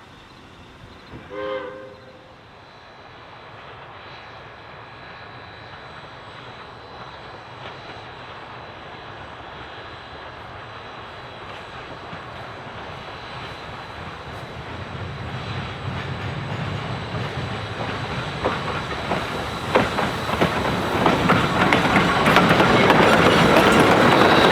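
A train sounds a short whistle blast early on, then approaches, growing steadily louder, with its wheels clicking over the rail joints as it nears in the last few seconds.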